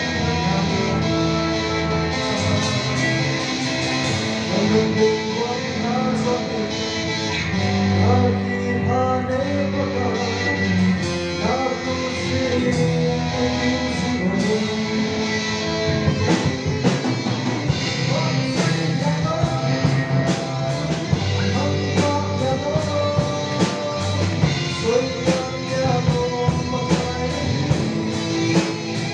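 A band playing a song with singing and guitar; a drum beat becomes prominent about halfway through.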